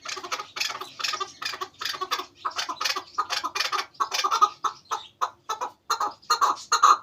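Chukar partridge calling in a rapid run of short clucking notes, about three to four a second, growing louder near the end.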